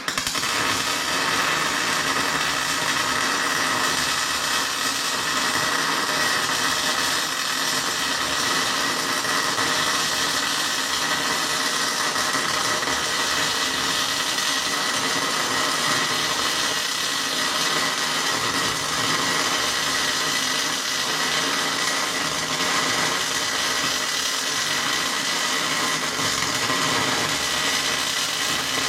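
Angle grinder running steadily on the steel grader blade with a continuous whine, grinding down the weld. It starts abruptly and holds an even pitch throughout.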